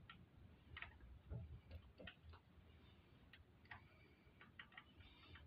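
Near silence with a dozen or so faint, irregular light clicks and taps: small metal parts being handled at a V-twin motorcycle engine's tappet (lifter) block.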